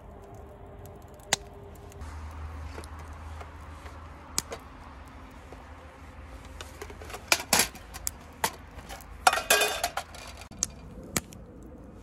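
Metal mess tins and a small folding stove being unpacked from a pouch and set on a metal mesh table: scattered light metallic clinks and clatters with some rustling, busiest about two-thirds of the way through.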